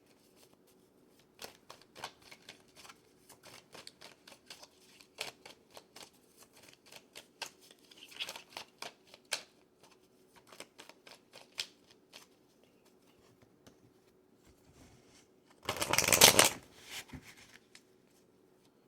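Tarot cards being shuffled by hand: a run of light card flicks and taps, with one louder, longer burst of shuffling near the end.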